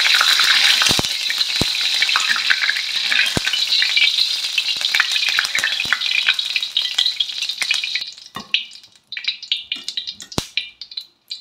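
Hot oil sizzling in a wok as just-fried anchovies are lifted out in a wire strainer and drained, with a few clinks of metal utensils against the wok. The sizzling dies down about eight seconds in, leaving scattered light clicks and one sharp clink near the end.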